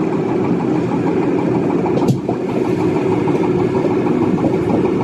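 Passenger river boat's engine running steadily, with a single sharp knock about two seconds in.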